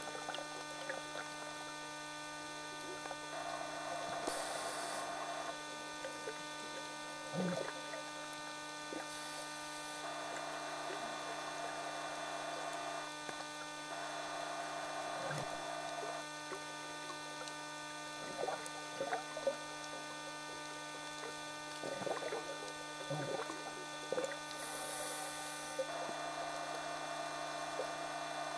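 Steady electrical hum of a camcorder filming inside an underwater housing on a scuba dive, with the diver's regulator breaths hissing through a few times and some faint clicks.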